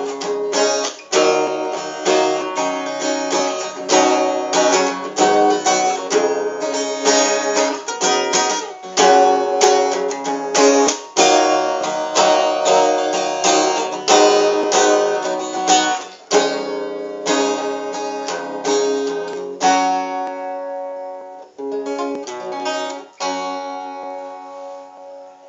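Small 12-fret Groovin GAS150NM acoustic guitar being strummed in chords, strokes following each other closely, spacing out and ringing longer near the end.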